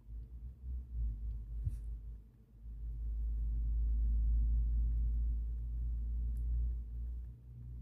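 Low rumble that swells about two and a half seconds in and stays up until near the end, over a faint steady hum, with a few faint ticks.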